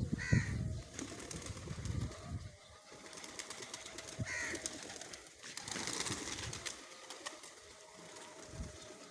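Flock of domestic pigeons cooing, with two short higher-pitched bird calls, one at the start and one about four seconds in.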